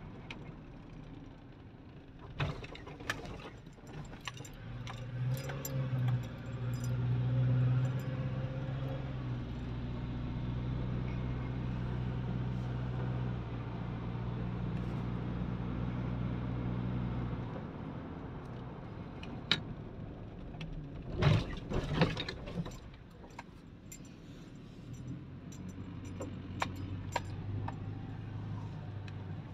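Car engine and road noise heard from inside the cabin while driving: the engine hum rises about five seconds in, holds steady, then eases off past the middle and picks up again near the end. Scattered sharp clicks and rattles, the loudest a cluster about two-thirds of the way through.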